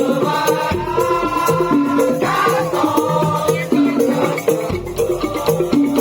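Madurese tong-tong (daul) percussion ensemble playing: a fast, repeating pattern of pitched percussion notes over steady rattling and clicking percussion. A higher melodic line is held over the first two seconds or so.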